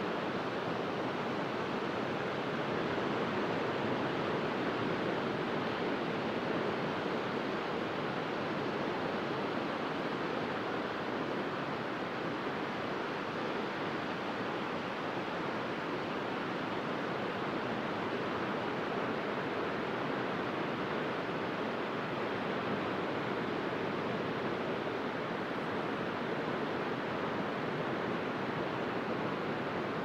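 Small waves breaking and washing across a wide, shallow sandy beach: a steady, even surf noise that swells slightly a few seconds in, with no single crash standing out.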